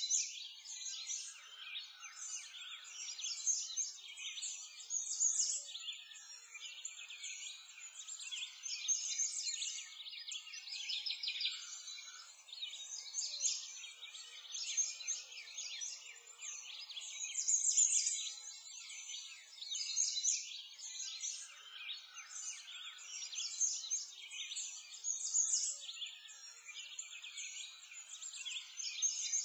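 Many small songbirds chirping and singing at once in a continuous high-pitched chorus.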